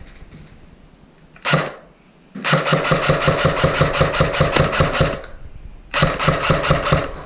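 Airsoft electric submachine gun firing full-auto: two bursts of fast, even, motor-driven rattling, a long one of nearly three seconds and a shorter one of just over a second near the end, with a brief single sound a second and a half in.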